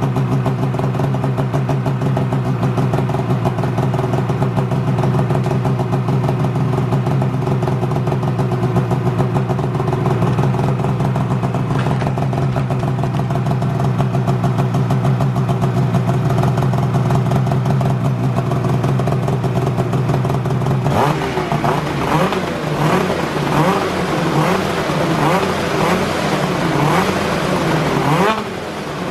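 2019 Polaris Patriot 850 snowmobile's two-stroke twin-cylinder engine breathing through a GGB Mountain Can aftermarket silencer: a steady idle for about twenty seconds, then repeated throttle blips with the revs rising and falling.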